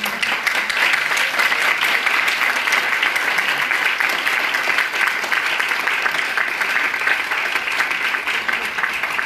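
A roomful of people applauding steadily and densely.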